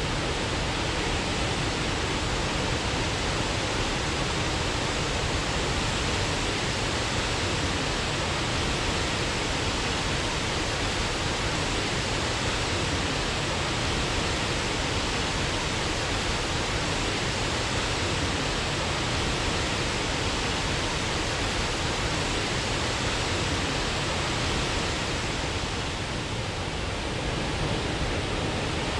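Waterfall: steady, even rushing water that dips slightly in level about 26 seconds in.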